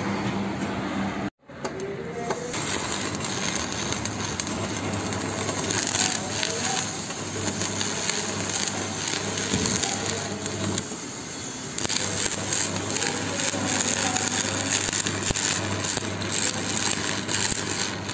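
Stick (arc) welding on steel sheet: the electrode arc crackles and sizzles steadily over a low hum. The arc drops out briefly about eleven seconds in and then strikes again.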